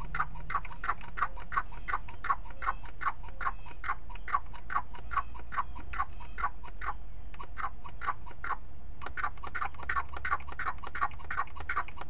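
Hand-squeezed vacuum pump from a brake-bleeder kit clicking with each stroke, about three times a second, with a brief slowdown around the middle. It is pulling vacuum on a sterndrive outdrive's lower unit to test a newly replaced prop shaft seal for leaks.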